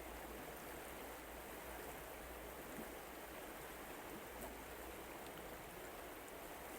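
River water flowing, a faint, steady rush.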